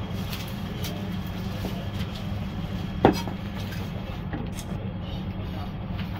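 Cleaver chopping roasted pork knuckle on a plastic chopping board: one hard chop about three seconds in, with a few lighter knocks, over a steady low background hum.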